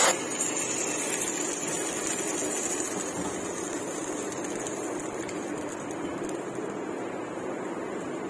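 Hot tempering oil with fried onions and red chili sizzling on the surface of a pot of beef nihari. The sizzle eases quickly after the first moment and settles into a steady low sizzling simmer.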